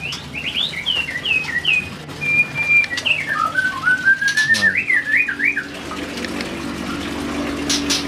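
A songbird singing a run of whistled notes that swoop up and down, with one held steady note in the middle, stopping about six seconds in. A low steady hum follows.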